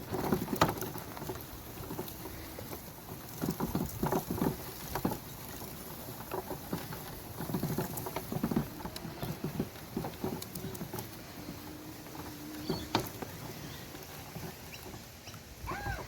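Go-kart driving over rough, rocky ground: irregular knocks and rattles of the chassis over a steady motor hum, which stops about 13 seconds in.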